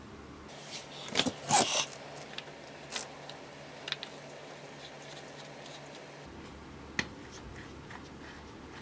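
Hands fitting a hose onto a motorcycle engine case: a burst of scraping and rustling about a second in, scattered small clicks, and one sharp click about seven seconds in.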